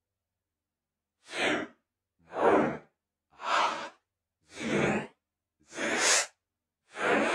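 A single voice counting down in German, one number roughly every 1.2 seconds, with six numbers starting about a second and a half in.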